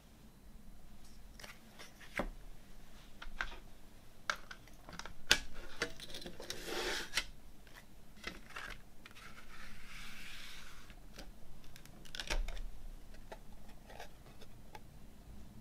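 A CD and its plastic jewel case being handled: scattered clicks and taps of the plastic, sharpest about five seconds in, with soft sliding and rustling as the disc is worked off the centre hub.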